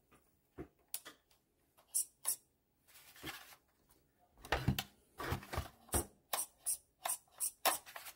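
Small steering servo of an MN78 RC crawler buzzing in short bursts as the steering is swung back and forth, about three bursts a second from about halfway on, after a few scattered clicks and knocks from the truck being handled. The servo is responding to the remote: the steering is working.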